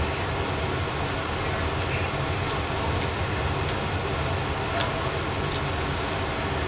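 Steady low rumbling background noise with hiss, over which a few faint mouth clicks from chewing a sandwich are heard, and one sharp click about five seconds in.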